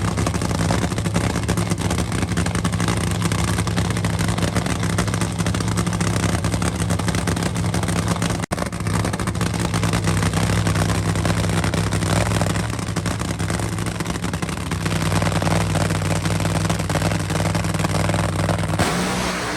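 Supercharged nitro funny car V8 engine running steadily and loudly, with a brief break about eight and a half seconds in.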